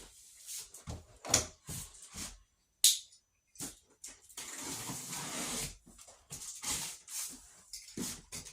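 Cardboard box and packing being handled and opened: irregular rustles and scrapes, with one sharp click about three seconds in and a longer stretch of rustling in the middle.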